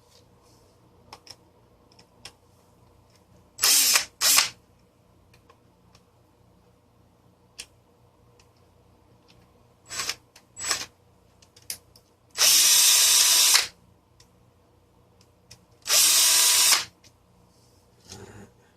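Power drill-driver whirring in bursts, backing out screws to take the fan apart: two short whirs about four seconds in, then two steadier runs of about a second each near the middle and later on. Small clicks of handling come between them.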